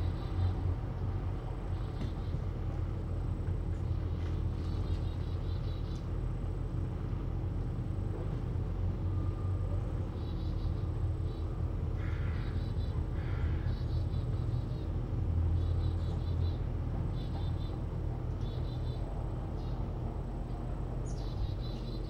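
Steady low hum and rumble of room noise, with no clear event standing out.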